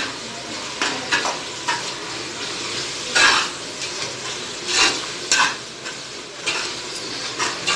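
Metal spatula scraping and stirring in an aluminium pressure cooker as mint and coriander leaves are sautéed into an onion-tomato masala, with a steady sizzle of frying underneath. The scrapes come unevenly, about one a second.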